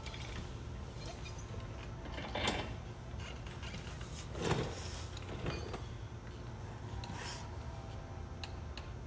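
A heavy steel Steer Smarts Yeti drag link being picked up off a concrete floor and offered up into the steering under a Jeep Wrangler JK: two short scraping knocks, about two and a half and four and a half seconds in, and a few faint clicks, over a steady low hum.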